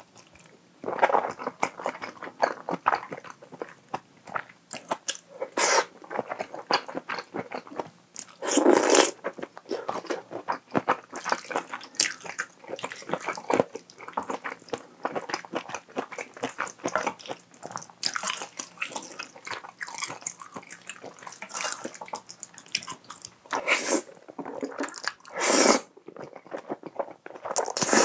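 Close-miked eating of creamy fettuccine pasta: wet, sticky chewing and lip smacks throughout, broken by several short, loud slurps of noodles, the longest about nine seconds in.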